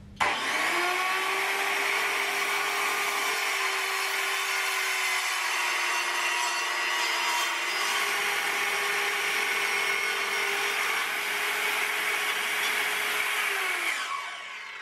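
Evolution metal-cutting circular saw starting up and running steadily under load as it scores a groove along the edge of a metal sheet, a hissing cut over a steady motor hum. Near the end it is switched off and winds down with a falling pitch.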